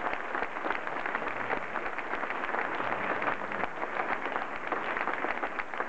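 Audience applauding steadily, a dense clatter of many hands clapping.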